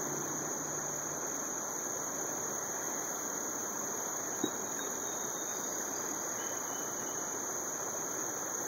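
Steady rushing outdoor background noise with a constant high hiss, and a single faint click about four and a half seconds in.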